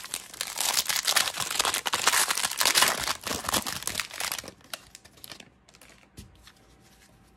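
Foil wrapper of a Bowman Draft baseball card pack crinkling and tearing as it is peeled open by hand, for about four and a half seconds. Then fainter rustling with a few light clicks as the stack of cards comes out.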